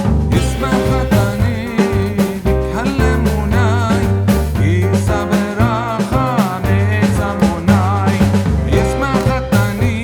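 Upbeat background music with drums and a sung or instrumental melody, a steady beat.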